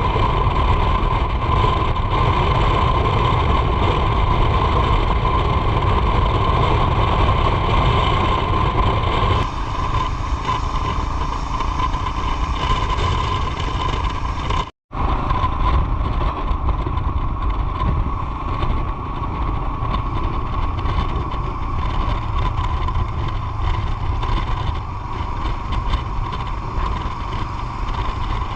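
Motorcycle on the move: steady engine and road noise with heavy wind buffeting on the microphone. It cuts out completely for a moment about halfway through, then carries on.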